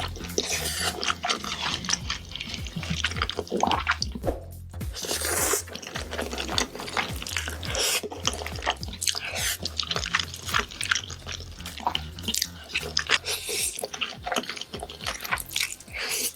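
Close-miked eating sounds: slurping and chewing black bean noodles (jajangmyeon), a dense run of wet clicks and smacks, over background music with a low bass line.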